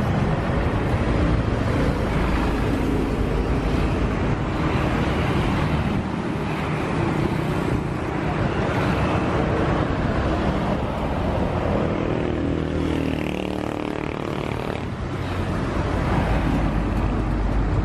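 Road traffic: vehicle engines and tyre noise, with a heavy engine's steady drone standing out for a few seconds late on and abrupt changes where the shots cut.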